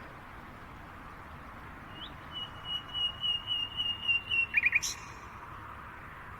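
A songbird singing one phrase: a rapid run of notes at a single high pitch lasting about two and a half seconds, ending in three louder quick notes. A brief click follows right after. A steady hiss lies underneath.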